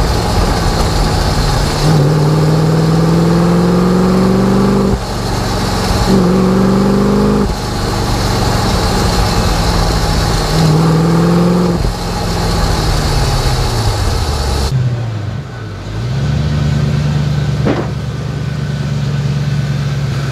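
Audi V8 engine in a Porsche Boxster, heard from under the car while driving: its pitch climbs under acceleration in several pulls, dropping sharply at each gear change, then falls away as the car slows, and holds steady near the end, with road and wind noise underneath.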